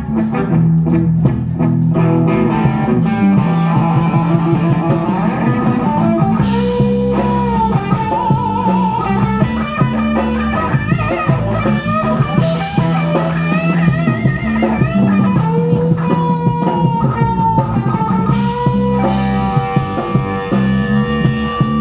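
Live band playing an instrumental rock passage: a guitar lead with bending, wavering notes over a steady bass line and drum kit.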